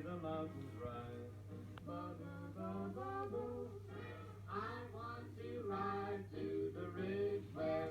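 Unaccompanied singing: long held notes that slide up and down in pitch, over a steady low hum.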